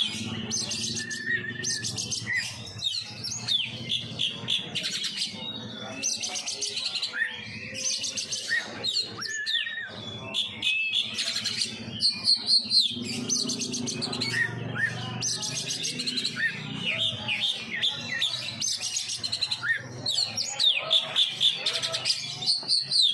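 Oriental magpie-robin singing continuously in full song, a varied run of clear whistled glides and rapid repeated notes, over a faint low hum.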